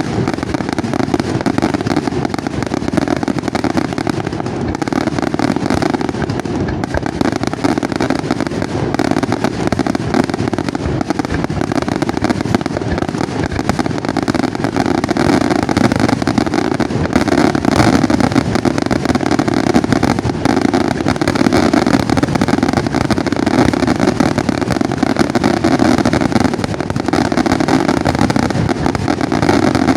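Dense barrage of fireworks: rapid explosions and crackling packed so close together that they merge into one continuous, loud din, growing a little louder about halfway through.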